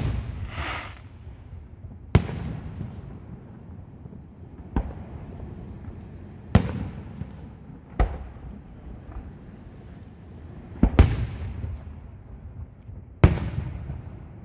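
Fireworks display: about eight sharp bangs of aerial shells bursting at uneven intervals, each followed by a low rumbling echo, with two bangs close together about three quarters of the way through. A brief hiss follows just after the first bang.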